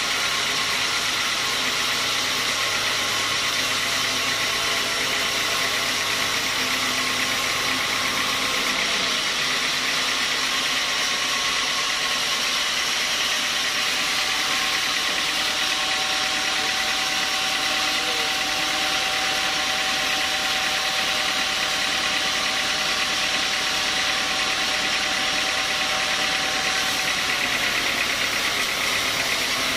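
Homemade band sawmill running, its blade cutting lengthwise through a large log: a steady mechanical noise with a constant hum. A faint high tone joins in about halfway through and stops near the end.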